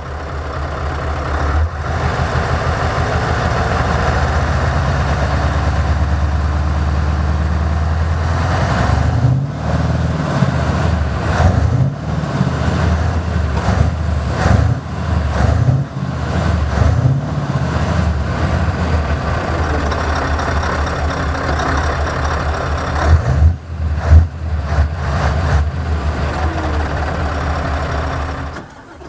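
Scania S650's 16.4-litre V8 diesel on its stock exhaust idling steadily, then revved in several short blips that rise and fall in pitch, and settling back to idle.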